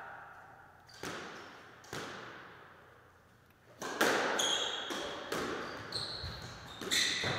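Squash ball strikes echoing in the court: two lighter hits a second apart, then a hard strike about four seconds in and a quick run of further hits as a rally starts. Rubber-soled shoes squeak on the wooden floor between the hits.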